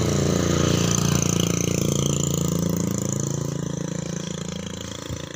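Motorcycle passing close by on the road, its engine note sliding down in pitch as it goes past and then fading slowly as it rides away.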